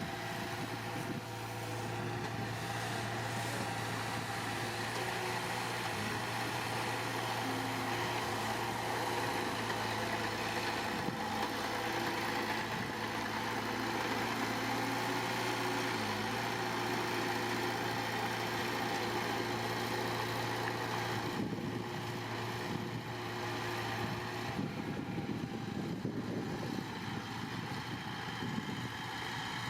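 Heavy construction machine's diesel engine running steadily at a constant, low, even pitch, with no revving.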